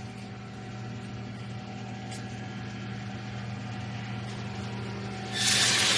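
Anti-climb mesh welding machine running with a steady hum, then a loud hiss starting suddenly about five and a half seconds in.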